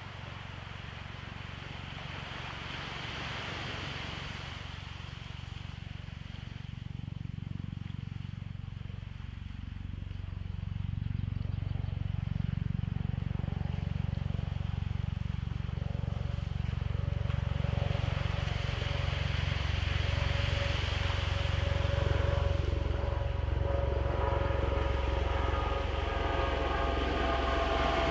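A motor's low rumble grows steadily louder, with a droning tone joining in over the second half.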